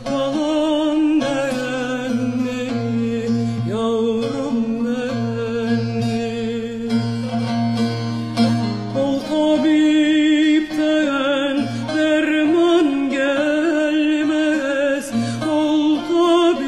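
Recorded Turkish folk-song music with instrumental accompaniment: held low notes under a melody that wavers with vibrato, growing brighter about halfway through.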